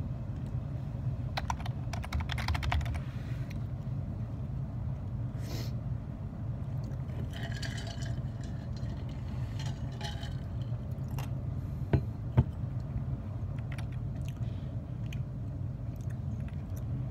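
Typing on a computer keyboard in scattered bursts of key clicks over a steady low hum, with two sharp, louder clicks close together about twelve seconds in.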